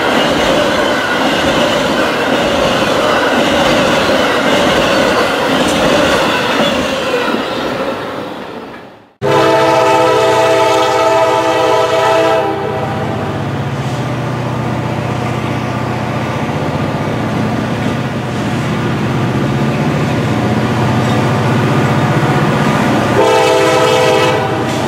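Amtrak autorack cars rolling past with steady wheel-on-rail noise, which fades out about eight seconds in. Then a diesel freight locomotive's air horn sounds a blast of about three seconds, the engine hums steadily as it approaches, and a second, shorter horn blast comes near the end.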